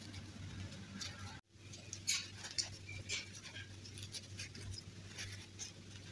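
Hands handling a plastic fashion doll and its fabric dress: soft rustling and scattered small clicks, with a brief dropout about one and a half seconds in.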